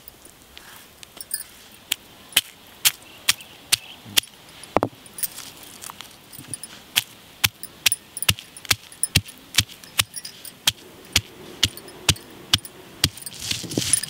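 Stone roller striking garlic cloves on a flat stone grinding slab: sharp stone-on-stone knocks about twice a second as the cloves are crushed. Near the end it turns into a rough grinding scrape as the roller is rolled over the crushed garlic.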